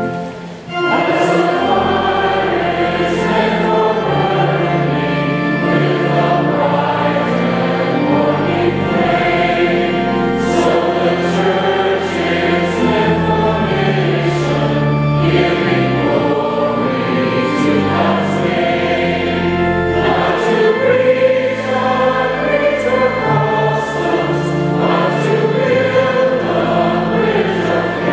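Congregation singing a hymn together to organ accompaniment, sustained sung notes over steady low organ tones. The sound dips briefly under a second in, then the singing carries on.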